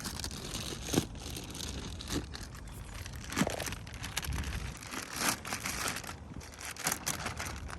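Plastic fish-transport bags crinkling and rustling as they are handled, in irregular bursts with a few sharper crackles.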